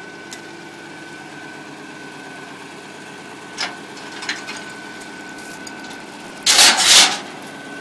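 Hough excavator's engine running steadily, with a few sharp knocks in the second half and a loud half-second rush of noise near the end.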